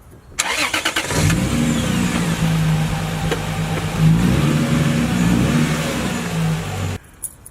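Car engine revving hard as the car pulls away in a peel-out. It starts suddenly about half a second in, holds a strong steady engine note and cuts off suddenly near the end.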